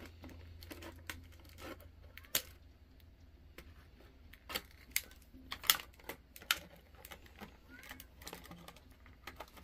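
Scattered sharp clicks and faint crinkling from small objects and packaging being handled, over a low steady hum.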